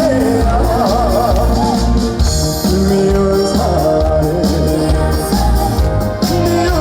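Live trot music: a male singer performing with a band, his voice wavering in pitch over a steady low beat.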